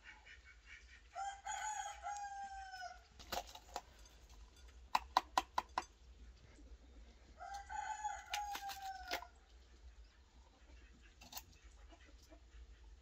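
A rooster crowing twice, each crow about two seconds long and dropping slightly at the end. Between the crows comes a quick run of sharp clicks from a knife cutting bell peppers; these clicks are the loudest sounds.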